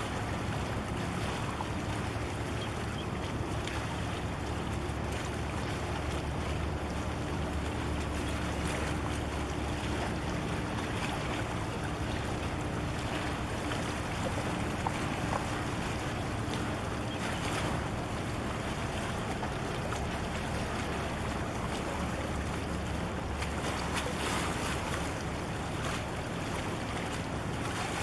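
Low steady rumble of a passing container ship, with wind gusting on the microphone and water lapping. A faint steady hum runs through the first half.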